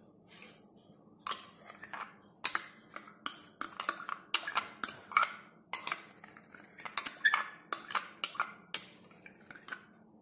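Plastic spoon scraping condensed milk out of a small bowl, clicking and scraping against the bowl in a run of short, sharp strokes, about two a second.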